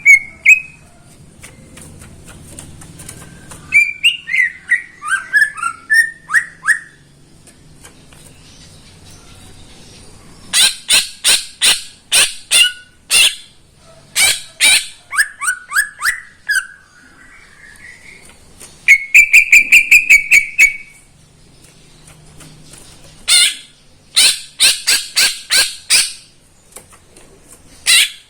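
Green leafbird (cucak ijo) singing in bursts of varied song. Slurred falling phrases alternate with runs of sharp, rapid notes, and a fast high trill comes about two-thirds of the way through.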